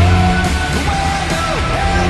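Anaheim Ducks arena goal celebration audio: loud rock music with guitar, playing continuously.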